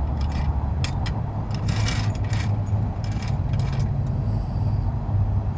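Vehicle engine idling steadily, with a series of light metallic clinks and rattles of tools or hardware in the first few seconds.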